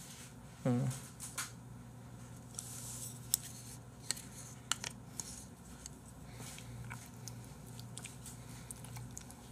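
Faint crinkling and sharp clicks of a plastic sauce packet being handled and torn open by hand.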